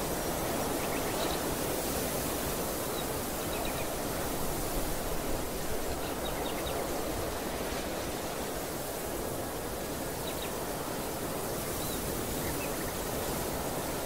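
Steady wind rushing across an open field, with ragged low rumble on the microphone, and a few faint, short high bird chirps now and then.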